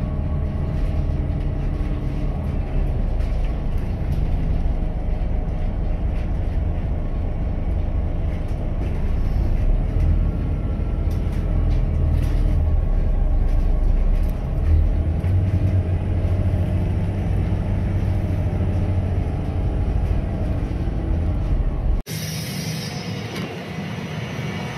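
Volvo B7 bus's six-cylinder diesel engine heard from inside the cabin: a steady low rumble that grows stronger about two-thirds of the way through as the engine pulls harder. Near the end it breaks off abruptly into a quieter sound.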